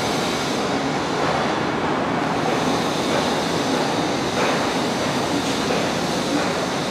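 Steady rumble and running noise of a moving train heard while riding it, likely the Disneyland Railroad.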